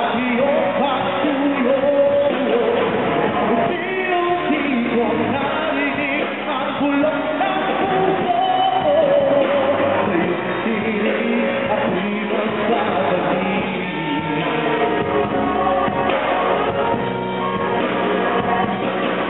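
A live band playing a song, with a lead vocalist singing over it in a large covered court.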